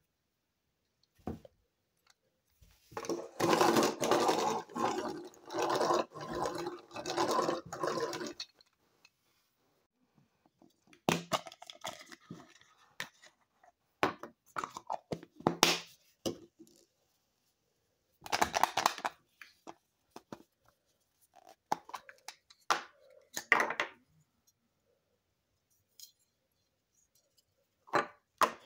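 Small plastic Burger King Happy Feet penguin toys being handled and worked. A dense, rhythmic buzzing and clicking runs for about five seconds starting about three seconds in, then come scattered plastic clicks and knocks.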